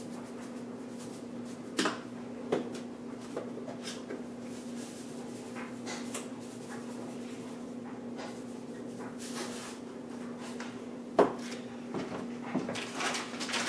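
Kitchen handling noises: salt and pepper shaken over a mixing bowl, with a few sharp knocks of containers set on the countertop, about two seconds in and again near the end, over a steady hum.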